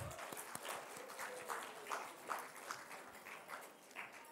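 Faint, scattered clapping from an audience, several irregular claps a second.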